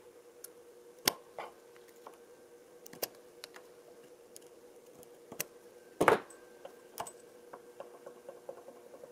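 Scattered sharp metallic clicks and taps of pliers against a motorcycle's Brembo front brake master cylinder as the loosened piston is gripped and worked out of its bore. The loudest clicks come about a second in and around six seconds in, over a steady low hum.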